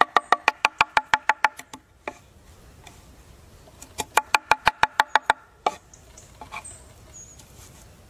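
Chef's knife rapidly chopping fresh parsley and dill on a wooden board: quick, even knocks of the blade on the wood at about seven a second. There are two runs of chopping, one at the start and another about four seconds in, with a few single knocks and quiet between them.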